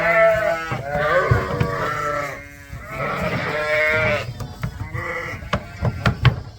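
Sheep bleating: two long, loud, wavering bleats, then a run of sharp clicks and knocks with fainter bleats through the second half.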